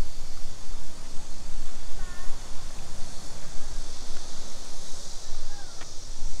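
Outdoor ambience dominated by a steady rumble and hiss, with wind on the microphone, and a few faint short high calls about two seconds in and again near the end.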